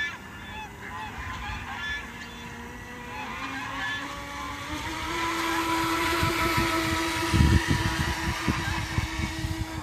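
Geese honking briefly at first, then the whine of an RC jet boat's stock brushed 380 motor on a 3S LiPo, rising in pitch and growing louder as the boat speeds closer. Low thumps come in near the end.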